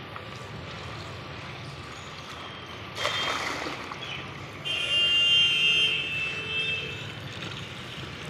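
Water running from a hose into a plastic bucket over a steady low hum, with a sudden rush of noise about three seconds in. Soon after, a loud high-pitched tone sounds for about a second and a half; it is the loudest thing heard.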